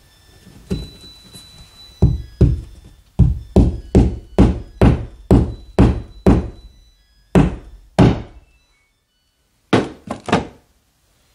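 Claw hammer tapping a plastic drywall anchor into a hole in drywall: about a dozen sharp knocks, mostly about two a second, then a pause and three quick knocks near the end.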